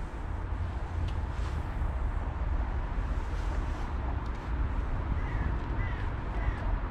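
Steady low outdoor rumble at the water's edge, with a couple of faint short bird calls about five seconds in.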